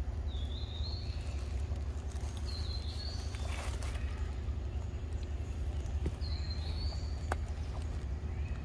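A bird repeats a short whistled phrase that steps up in pitch, three times, over a steady low rumble. There is a brief rustle about three and a half seconds in and a single sharp click near the end.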